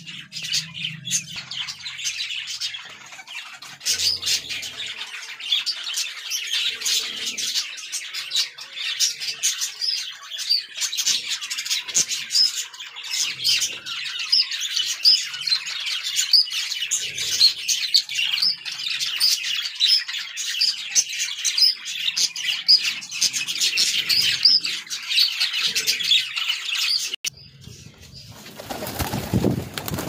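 Budgerigars chattering in a dense, continuous flock of high chirps and warbles, with wings flapping and occasional low pigeon coos. The chatter breaks off suddenly near the end, giving way to a noisier sound.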